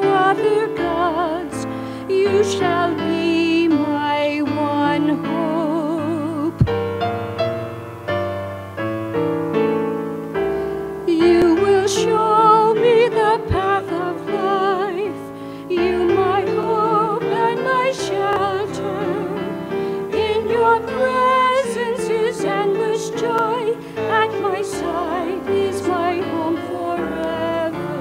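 A woman singing the responsorial psalm with vibrato, accompanied by a digital piano.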